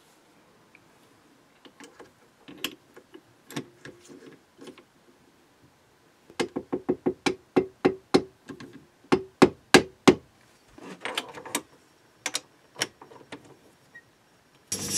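Soft-faced mallet tapping a brass crank disc to seat it true in a lathe's three-jaw chuck: scattered light knocks, then a quick run of sharp knocks about four a second, then a few more. The lathe starts up right at the very end.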